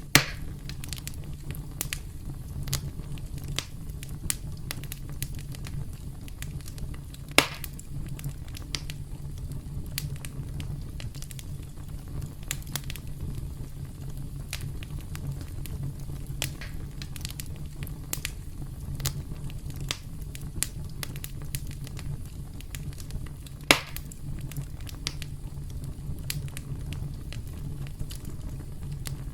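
Wood campfire crackling: many small snaps and pops over a steady low rumble of the flames. Three louder pops stand out, one right at the start, one about seven seconds in, and one near twenty-four seconds.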